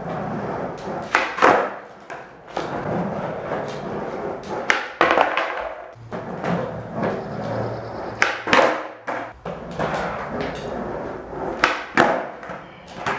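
Skateboard on a concrete garage floor during flat-ground flip tricks: wheels rolling, with several sharp cracks of the tail popping and the board landing, often in pairs a few tenths of a second apart.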